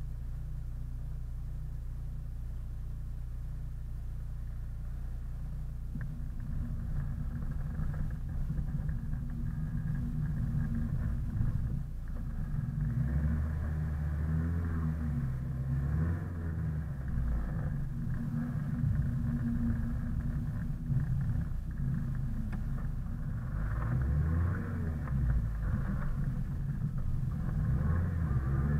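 Car engine idling steadily, then about six seconds in it starts driving off, with the revs rising and falling through the gears.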